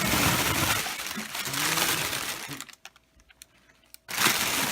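Packing material rustling and crinkling as a box is unpacked by hand. The sound breaks off to near silence for about a second past halfway, then starts again.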